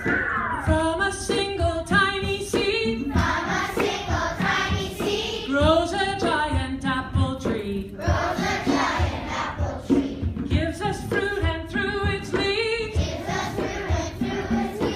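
Music: voices singing together over a steady low beat.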